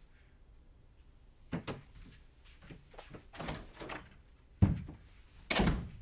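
A door being shut hard, with a sharp thud a little past halfway and another knock near the end, after a few softer knocks and rustles.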